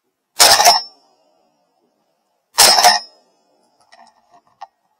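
Two shotgun shots about two seconds apart, fired with Azot No. 7 shot shells at a high-flying duck; the second shot brings the duck down.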